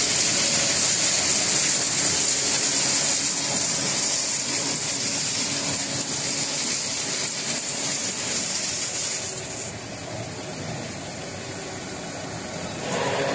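Steady machinery noise with a loud high hiss, easing slightly about two-thirds of the way through; near the end a louder engine-like hum with several steady tones comes in.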